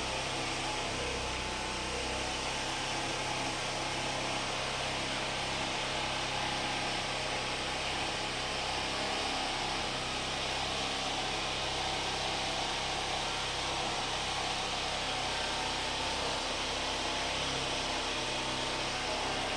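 Portable generator engine running steadily: an even low hum under a constant hiss.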